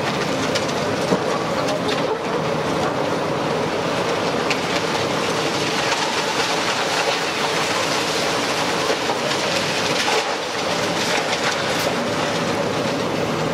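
A demolition excavator's hydraulic crusher jaw is breaking up a concrete wall. Concrete crunches and rubble clatters down in a dense, steady racket, with a few sharper cracks.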